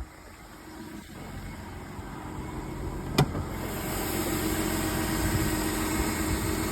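Mercedes-Benz E350's M272 V6 engine idling steadily just after a cold start, running smoothly with no knocking yet. It grows louder over the first few seconds, with a single sharp click about three seconds in.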